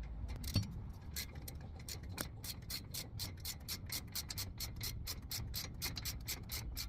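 Hand socket ratchet clicking rapidly and evenly, about five or six clicks a second, as an 18 mm socket turns a brake caliper bracket bolt in.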